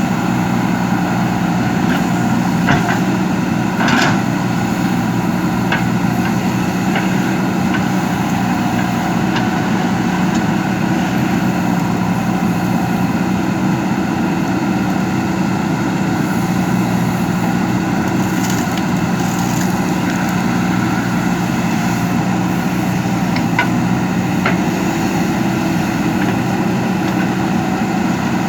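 JCB backhoe loader's diesel engine running steadily under work, with a few short knocks along the way.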